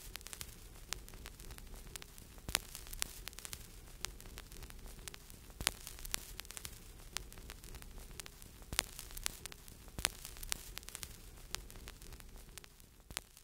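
Vinyl record surface noise: crackle and scattered pops over a steady low hum, with a louder pop every few seconds, fading out at the very end.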